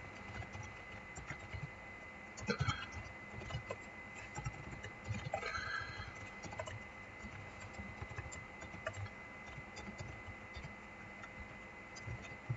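Computer keyboard typing: irregular key clicks, with a thin steady high whine underneath.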